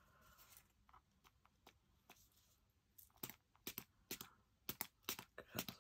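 Small pump spritzer of alcohol being pressed repeatedly: a run of short, sharp spritzes, about three a second, starting about three seconds in after a few faint ticks.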